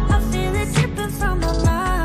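Background R&B pop music with a steady beat and heavy bass, a melodic line gliding over it.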